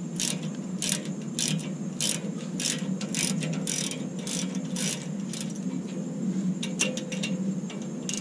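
Socket ratchet clicking in short bursts, about two a second, as it works a bolt on a pickup's rear brake caliper; the clicks thin out near the end. A steady low hum runs underneath.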